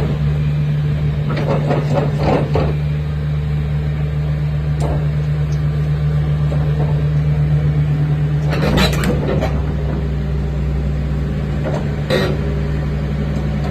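Caterpillar 330DL tracked excavator's diesel engine running steadily with a constant low hum, broken by a few short clattering knocks about 2, 9 and 12 seconds in.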